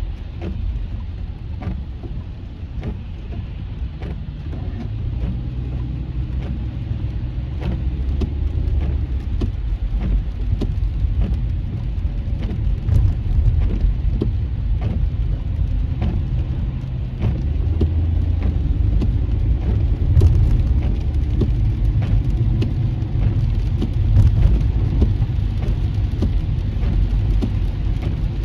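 A car's cabin while driving on a rain-soaked freeway: a steady low rumble of road and tyre noise, with raindrops tapping on the windshield throughout.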